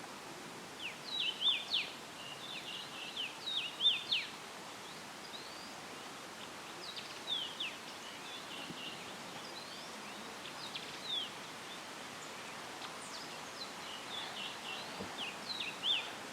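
Songbirds singing in short bouts of quick, high chirps, about four bouts, the loudest near the start, over a steady hiss of tree leaves rustling in a light breeze.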